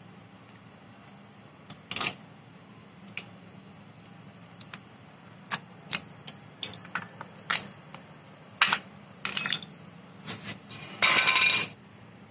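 Scattered sharp metallic clicks and clinks of a screwdriver working against the steel shaft and housing of a tractor starter motor's Bendix drive, prying off its locking ring. A longer metallic rattle comes near the end.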